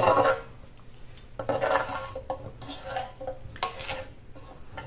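A utensil stirring baby carrots in a pan, scraping and clinking against the pan in a few irregular bursts, the loudest at the start.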